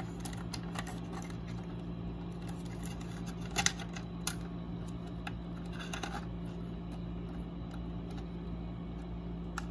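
Nylon cable tie handled against a desk lamp's metal grille cover while being threaded through it: a few small, sharp clicks a few seconds in, over a steady low hum.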